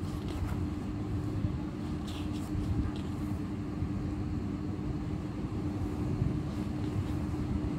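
Paper pages rustling faintly a few times as printed pages are leafed through, over a steady low background hum with a constant tone.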